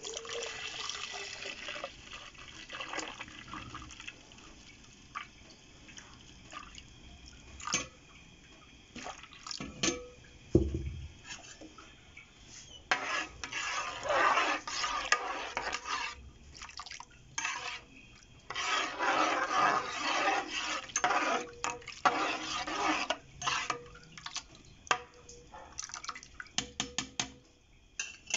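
Juice poured into a metal pot of liquid and shredded orange peel, splashing for the first couple of seconds. Then come scattered clinks of a spoon on the pot, and two longer spells of the spoon stirring and sloshing the liquid around the pot.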